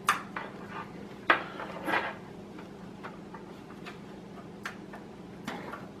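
Flat SATA data cables handled against a PC case's metal frame, giving a few sharp plastic clicks and small clatters: one at the start, the loudest about a second in, then scattered fainter clicks.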